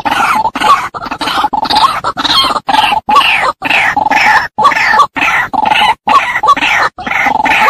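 Female white-breasted waterhen calling: a loud, rapid run of harsh croaking 'kruak' notes, each with a falling squeal on top, broken by brief gaps. It is the female's call used as a lure.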